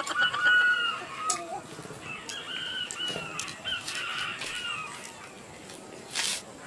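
Rooster crowing twice, each a long drawn-out call, over faint clicks of hands eating; a short burst of noise near the end.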